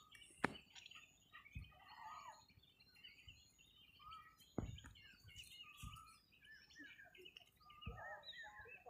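Faint chirping and twittering of small birds, many short calls overlapping throughout, with a few soft knocks scattered between them.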